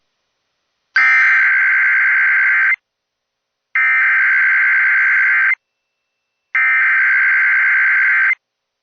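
Emergency Alert System SAME header sent as three identical bursts of rapid two-tone digital data, each about two seconds long with roughly a second of silence between them. The header encodes the alert at the start of a NOAA Weather Radio severe thunderstorm watch message.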